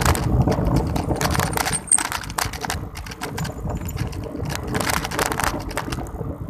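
Bicycle rattling while riding: irregular metallic clinks and clatters, over a low rumble of wind on the microphone.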